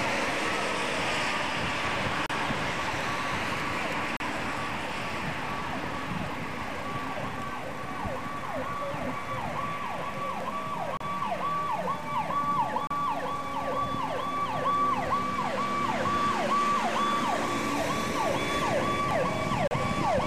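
Fire apparatus siren in a fast yelp, a rapidly repeating rise and fall, coming in a few seconds in and growing louder as the engine approaches, over the noise of passing road traffic.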